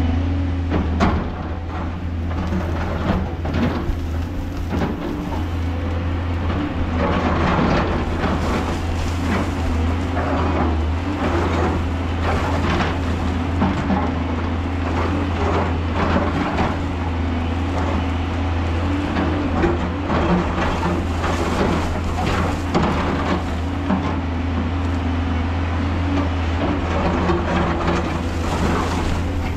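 JCB tracked excavator's diesel engine running steadily under load while its bucket scrapes and cuts into a rock-and-earth wall, with repeated irregular scraping and crunching and loose dirt falling.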